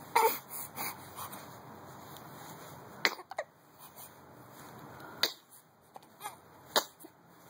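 Hiccups: one with a short voiced catch right at the start, a few fainter sounds after it, then three sharp, short hiccups about two seconds apart.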